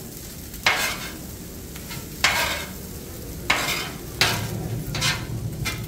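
Metal spatula and fork scraping across a hot flat-top griddle in about six short strokes, tossing egg through fried rice, over a steady sizzle.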